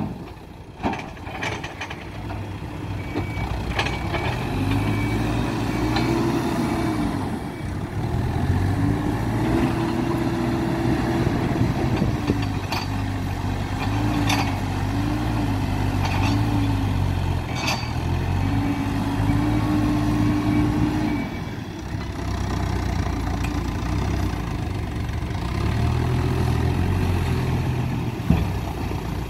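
Hidromek 102B backhoe loader's diesel engine working, its pitch rising and falling several times as the hydraulics take load, with a few sharp metallic knocks from the bucket and arms.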